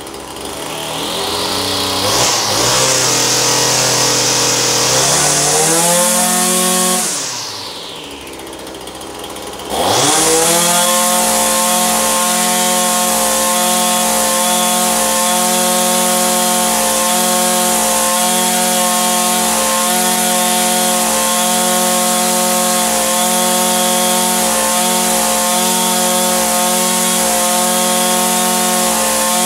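Echo SRM-2620 string trimmer's two-stroke engine running. It starts near idle, revs up about two seconds in and drops back around seven seconds, then revs up sharply near ten seconds in and holds at a high, steady speed.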